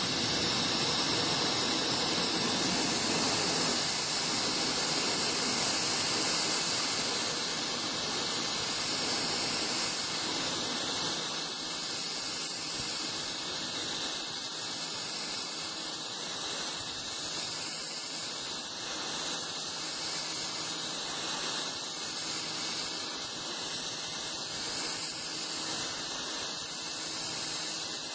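AR Blue Clean AR383 electric pressure washer spraying a high-pressure jet of water: a steady, continuous hiss of spray.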